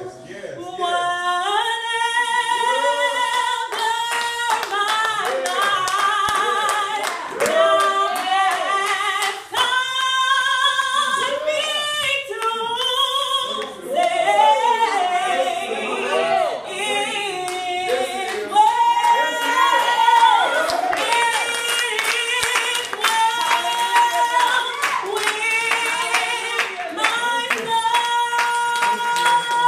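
A woman singing a gospel song into a microphone, amplified, with other voices joining in and hands clapping along.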